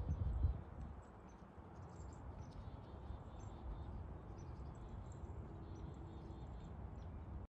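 Faint outdoor ambience with wind rumbling on the microphone, strongest in the first half second, and scattered faint high chirps; the sound cuts off abruptly near the end.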